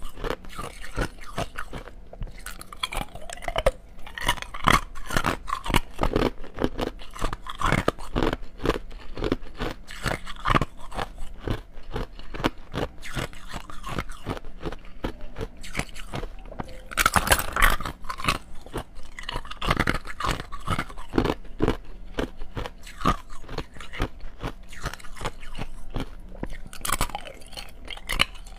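Clear ice cubes being bitten and chewed: a dense run of sharp cracking crunches, with the loudest crunch about seventeen seconds in.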